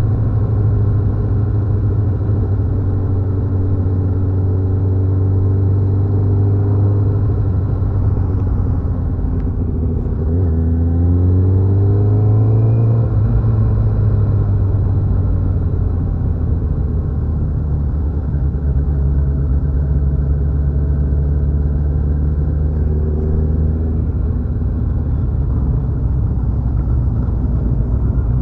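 Motorcycle engine running steadily on the move, its revs dropping and then climbing again about ten seconds in, and climbing once more near the end.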